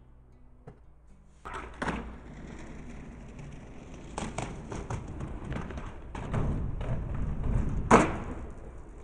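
Skateboard wheels rolling on rough concrete from about a second and a half in, with several sharp clacks of the board hitting the ground. The loudest clack comes near the end.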